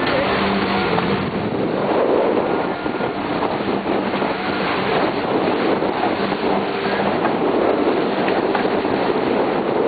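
Steady rushing of wind and water aboard a trimaran under way, with wind buffeting the microphone.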